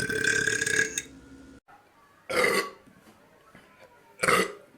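Burping: one long drawn-out burp that stops about a second in, then two short burps about two seconds apart.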